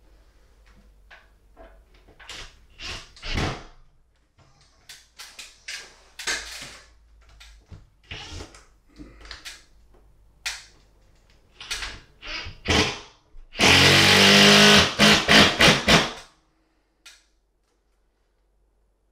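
Makita 10.8–12 V cordless impact driver driving a screw through a ceiling bracket into a wooden joist. It runs for about two and a half seconds and finishes with a few short hammering bursts, after several seconds of small clicks and knocks of handling the bracket. The sound of the screw biting tells that it has gone into the wooden joist, not just the OSB.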